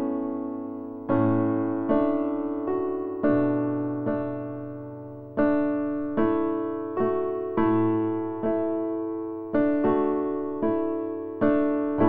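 Background music: slow, gentle piano, a note or chord struck roughly once a second and left to ring and fade.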